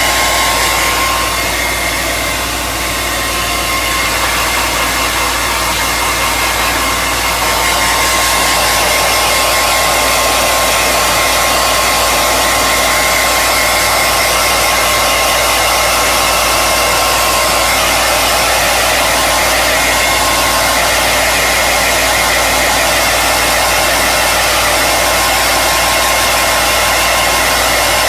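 Handheld hair dryer running steadily, a loud rush of blown air with a thin motor whine over it; the level dips briefly about three seconds in, then holds steady.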